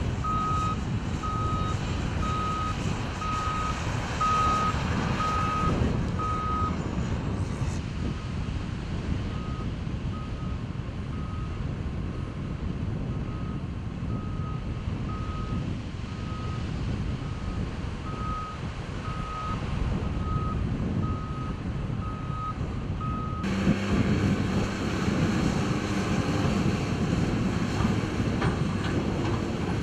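Caterpillar bulldozers working sand, their diesel engines rumbling under a backup alarm that beeps steadily a little more than once a second. The beeping turns fainter after about seven seconds. Near the end it stops and a louder, closer heavy-machine engine takes over.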